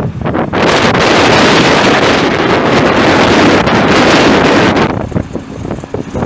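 Strong wind buffeting the microphone over a vehicle engine running underneath; the wind eases about five seconds in.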